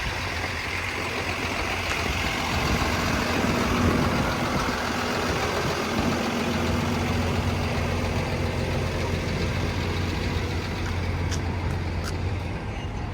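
Large vehicle engine running steadily at idle, a constant low hum under a broad noise, with a few faint clicks near the end.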